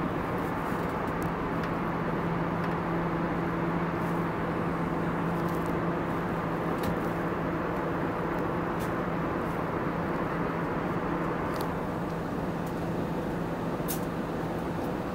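Steady cabin noise of an Airbus A319 at cruise, heard from a window seat beside the engine: a constant rush of airflow and engine noise with a steady low hum underneath.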